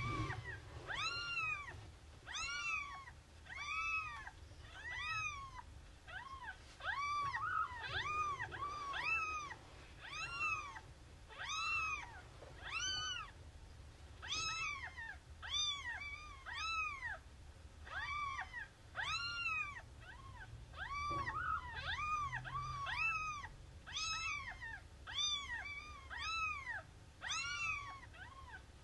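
A cat meowing over and over, about one meow a second, each call rising and then falling in pitch.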